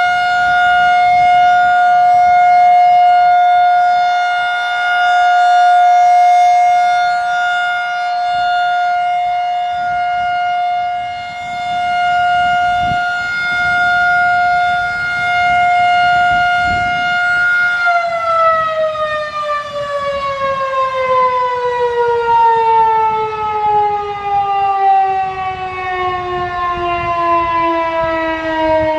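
Federal Signal 2001-130 single-tone chopper outdoor warning siren sounding its steady Alert tone, swelling and fading in loudness as the head rotates. About two-thirds of the way through, power is cut and the pitch falls steadily as the chopper winds down at the end of the alert.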